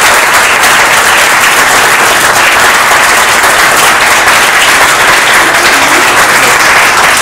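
Small seated audience applauding, a steady clatter of many hands clapping.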